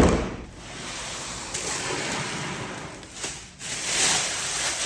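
Box and packaging being handled and opened: a sharp knock at the start, then continuous rubbing and rustling that breaks off briefly about three and a half seconds in.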